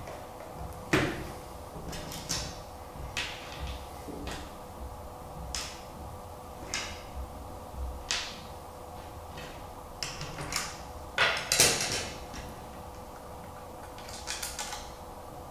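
Irregular small clicks and knocks from handling screws, a circuit board and acrylic and metal parts on a cutting mat during kit assembly, with a louder clatter a little before the 12-second mark and a quick run of light taps near the end.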